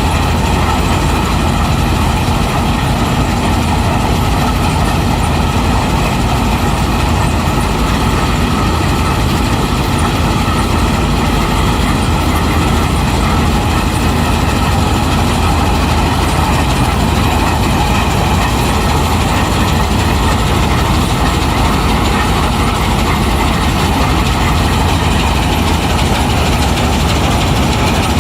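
Claas Lexion 760TT combine harvester running, a loud, steady mechanical drone with a deep rumble that holds unchanged throughout.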